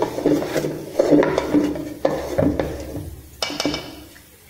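Wooden spoon stirring and working a thick, hot churro dough in a large stainless steel bowl: repeated scraping strokes with clinks against the metal. The stirring stops after about three and a half seconds with a sharp knock, then it goes quiet.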